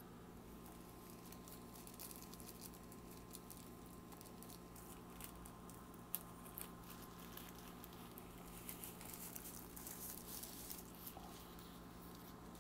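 Faint rustling and crinkling of a frosted plastic sleeve as a speaker is handled and slid out of it, with scattered small ticks and one sharper click about six seconds in. The rustling grows a little louder in the second half.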